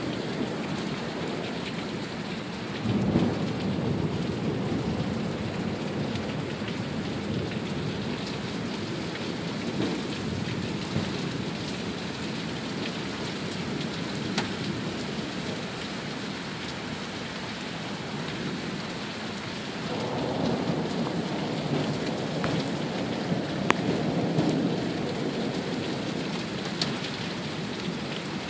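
Heavy rain pouring steadily in a thunderstorm. Thunder rumbles briefly about three seconds in, then again for several seconds starting about two-thirds of the way through.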